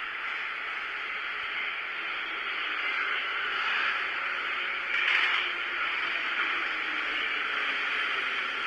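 Steady rushing noise heard inside a metro car of an 81-540/541 train, growing slightly louder, with a brief swell about five seconds in.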